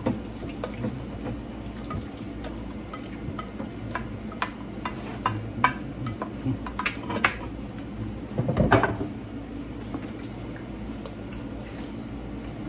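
Scattered clinks of a spoon against a pot as seasoning is stirred into a pot of broth, with a louder clatter of kitchenware about eight and a half seconds in.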